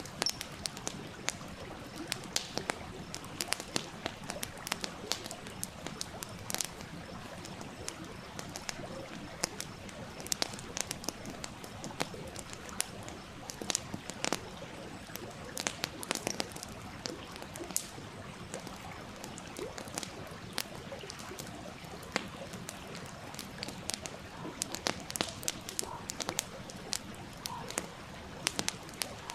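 Wood campfire crackling with frequent, irregular sharp pops over the steady rush of a small stream.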